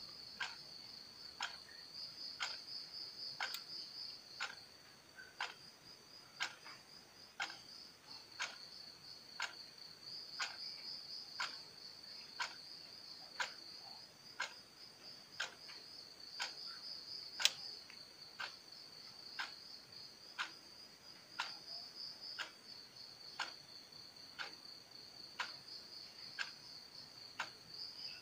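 Quartz wall clock ticking, one sharp tick each second as the second hand steps. Behind it runs a steady, high, gently pulsing trill of insects.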